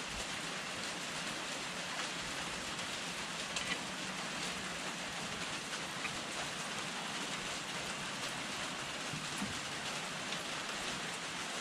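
A steady, even hiss like falling rain, with a few faint light clicks.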